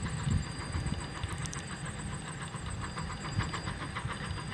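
Rogers K class No. 88 steam locomotive working along the line, its exhaust chuffing in a quick, even rhythm over a low rumble.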